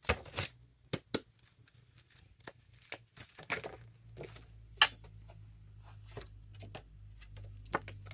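Tarot cards being handled: an irregular string of short flicks, taps and rustles. A steady low hum comes in about four seconds in.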